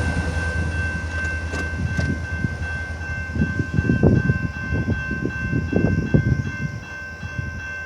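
Train rolling past with irregular low rumbles and knocks from the wheels and cars, under a steady high-pitched tone. The sound slowly gets quieter.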